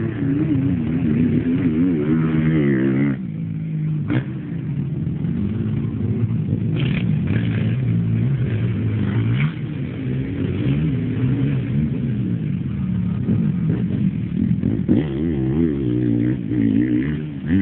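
Racing quad (quadcross ATV) engines revving hard and backing off around a dirt track, their pitch rising and falling over and over as the throttle opens and shuts.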